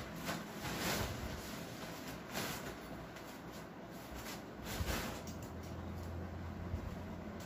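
A few soft rustles and shuffling footsteps of a person moving about the room, over a low steady hum that comes in about five seconds in.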